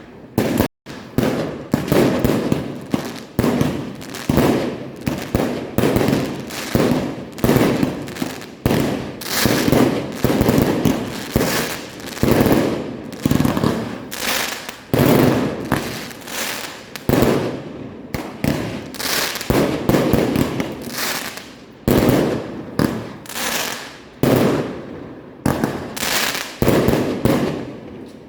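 Fireworks show: continuous rapid bangs and crackling volleys that surge again every second or two, with a brief cut-out about a second in.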